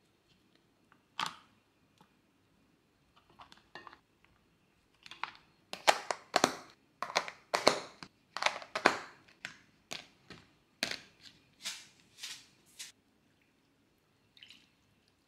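Cooked rice being scooped into plastic storage containers, then plastic lids pressed and snapped onto them. The second half is a quick run of a dozen or so sharp plastic clacks.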